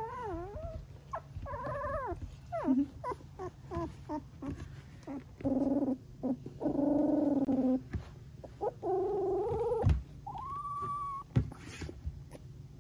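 Three-week-old golden retriever puppy vocalizing in a string of short, wavering trills and whines, with two longer calls about halfway through. A thump comes about ten seconds in.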